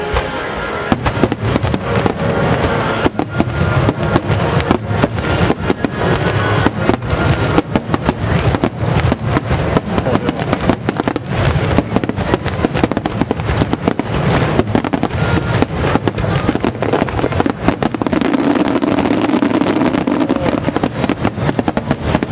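A fireworks barrage of aerial shells and rapid low shots going off in a dense, fast string of bangs and crackles that thickens about three seconds in, with music underneath.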